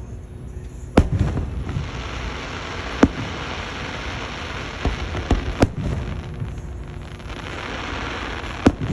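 Fireworks going off: sharp bangs about a second in, at three seconds and near six seconds, with smaller pops and a steady crackling hiss between them.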